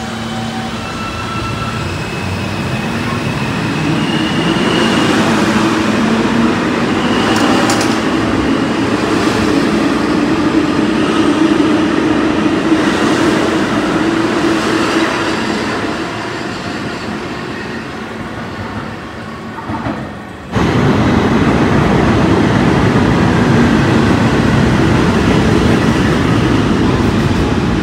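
A New York City subway train of R160-type cars pulling out of the station: motor whine and wheel rumble build as it gets under way, then fade as it leaves. About two-thirds of the way in, the sound cuts abruptly to a second subway train running loudly and steadily at the platform.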